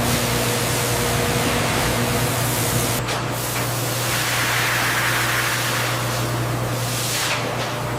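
Steady hissing noise over a low, even hum, swelling briefly in the middle.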